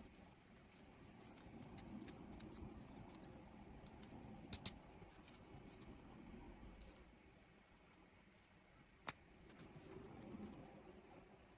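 Plastic model kit parts being handled, with soft rustling and scattered sharp clicks, two close together about halfway through and one louder click a little later.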